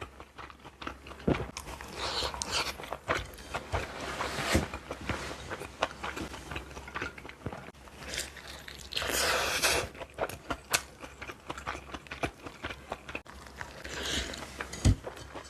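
A person biting and chewing meat dumplings: a run of short wet smacks and crunches, with a denser, louder stretch about nine seconds in and a single knock near the end.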